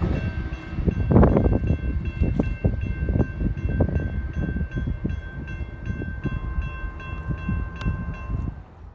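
A grade-crossing bell ringing steadily, about three strokes a second, over the low rumble of a distant approaching train. Gusts of wind buffet the microphone. The sound cuts off abruptly at the end.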